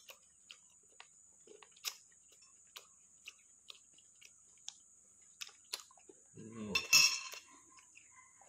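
Faint clinks of a metal spoon against a ceramic bowl and small eating sounds, then about six and a half seconds in a loud cough into the fist.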